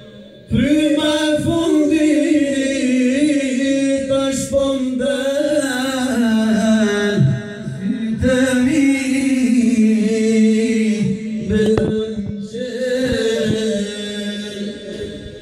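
A man's voice singing a slow Albanian devotional song (ilahi) unaccompanied into a microphone over a PA, holding long notes with wavering, ornamented pitch. The phrases break off briefly about halfway through and again near twelve seconds.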